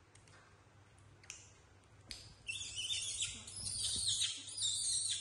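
A young macaque giving a run of high-pitched squeals, many falling in pitch, starting about halfway through. Before that, a few small clicks of sunflower seeds being cracked.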